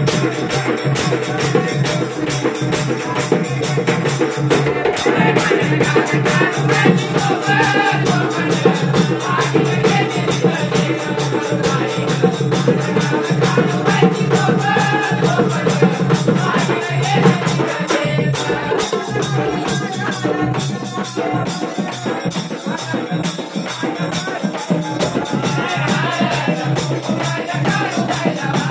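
Marathi devotional song to the goddess Kalubai: several voices singing together, a woman's and men's, over a large drum beaten steadily with a stick.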